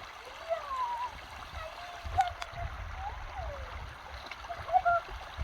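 Shallow stream babbling over stones, with a steady rush of water and many short gurgling notes, over an uneven low rumble.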